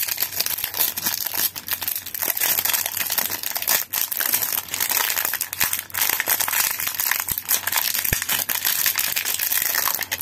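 Clear plastic wrapping on a pump bottle being crinkled and pulled at by hand: a steady, dense crackle of many small crinkles.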